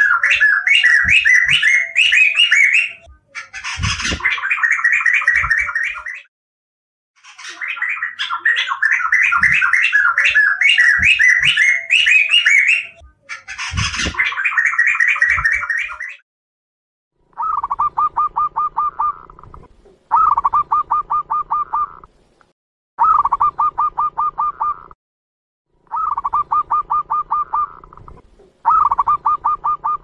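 Chestnut-capped laughingthrush singing loud, rich warbling phrases a few seconds long with short breaks. From about seventeen seconds in, a zebra dove gives repeated bursts of rapid staccato cooing notes, each burst about two seconds long and coming every three seconds or so.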